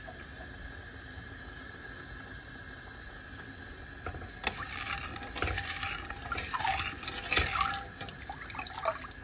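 Spoon stirring milk and rice in a steel pot, scraping the pot and sloshing the liquid, to keep the rice from catching on the bottom as it heats towards the boil. The first few seconds are low and steady; from about four seconds in the strokes come irregularly and louder.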